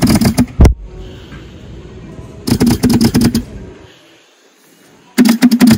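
BLUE3 Nemo battery-powered hookah dive compressor switching on in short rattling bursts of about a second, three times, each time a breath draws air through the regulator: the air valve is open and the unit runs on demand. A single sharp knock comes just after the first burst.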